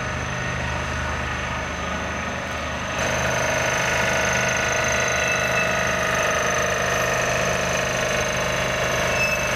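Diesel engine of a heavy-haul tractor unit running steadily as it pulls a long low-loader trailer slowly past, with a steady low hum and a mix of higher whining tones; the sound gets louder about three seconds in.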